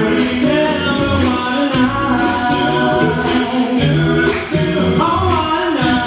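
Five-man a cappella vocal group singing in close harmony, several voices moving together, with a steady percussive beat.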